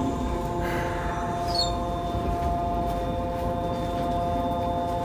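Yokohama Blue Line 3000A-series subway train standing at the platform, giving a steady hum of several held tones over a low rumble, with a brief rising squeak about a second and a half in.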